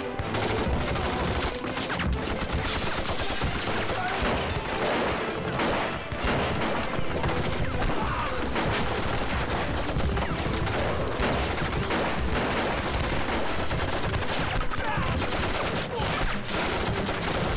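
Dense gunfire from many rifles in a firefight, with shots overlapping in a continuous fusillade that does not let up.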